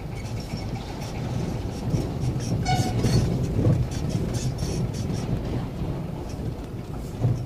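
Steady low engine and road rumble of a vehicle driving slowly over a rough dirt street, with one short horn beep about three seconds in.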